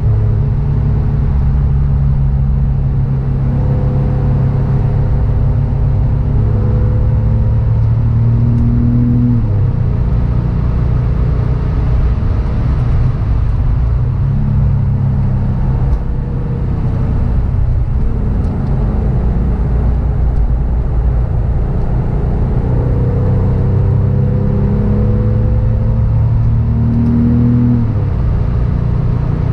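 Porsche 911 (996) flat-six engine heard from inside the cabin while driving, climbing in pitch as the car accelerates and dropping suddenly at each upshift, about a third of the way in and again near the end, over steady tyre and road rumble.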